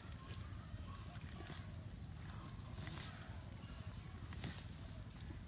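Steady, high-pitched insect chorus, with a few faint scattered clicks and crackles from a Komodo dragon tearing at a wild boar carcass.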